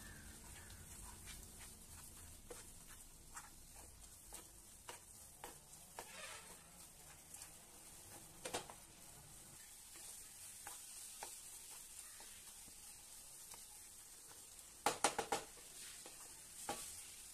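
Spatula stirring and scraping a dry ragi and rava mixture around a nonstick pan, a steady run of light scrapes and taps over a faint sizzle on low heat. A quick cluster of louder knocks of the spatula against the pan comes near the end.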